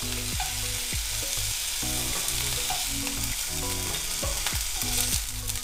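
Pork belly slices sizzling in hot oil in a frying pan, a steady hiss. Pieces are handled with metal tongs, with a cluster of light clicks near the end.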